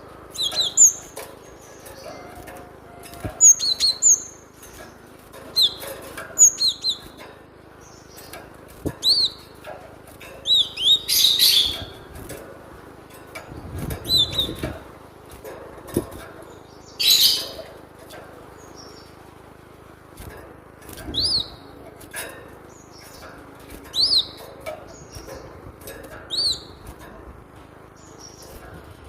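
Cinereous tit (gelatik batu) calling: short, sharp, pitch-bending notes in small clusters every second or two, with two louder, harsher noisy bursts partway through.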